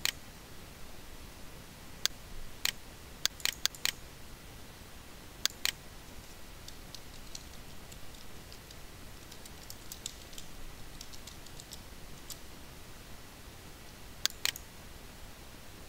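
Computer mouse clicking several times, then a few seconds of light keyboard typing, then two quick mouse clicks near the end, over a low steady hiss.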